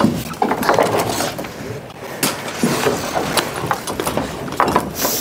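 Timber roof trusses being handled by hand: irregular wooden knocks, clatters and scraping as a truss is dragged and bumped over the other trusses and the top plates.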